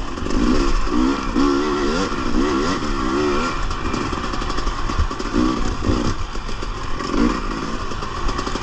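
Husqvarna TX300 two-stroke dirt bike engine revving up and down in quick swings as the rider works the throttle over rough trail, with clattering from the bike over the ground.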